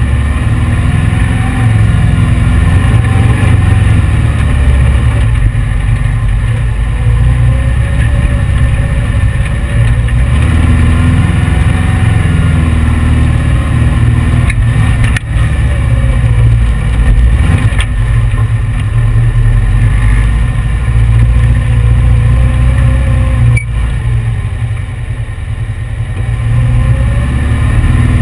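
The 1835 cc air-cooled VW flat-four engine of a sand rail running under way over sand dunes. Its pitch rises and falls as it revs up and eases off.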